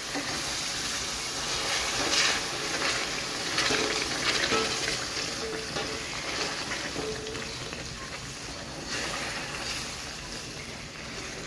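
Hot sugar syrup being poured slowly into semolina roasted in ghee, sizzling as it hits the pan, with a spoon stirring and scraping through the mixture.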